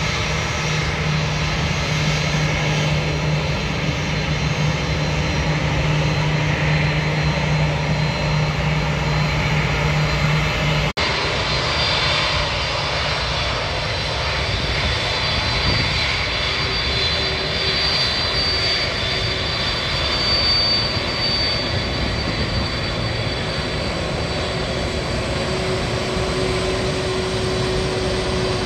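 Airliner engine noise running steadily. There is a brief break about eleven seconds in, after which a steady high whine sits over the noise.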